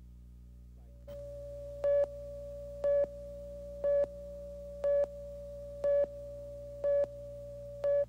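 Electronic tone starting about a second in and held steady, with a louder beep once a second, seven beeps in all, over a low electrical hum.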